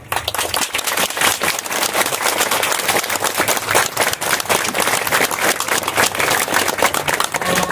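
Crowd applauding, dense clapping that starts suddenly and keeps up steadily.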